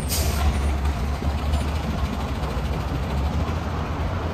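Large vehicle engine idling, a steady low rumble, with a short hiss right at the start.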